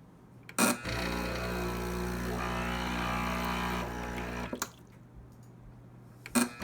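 Breville Barista Express (BES870) espresso machine: a button click about half a second in sets its pump buzzing for about four seconds, and it stops with another click. A further click near the end starts it again. The harsh buzz on pressing the button is the fault the owner reports as an abnormal crackling noise, worse when drawing water after using the steam wand.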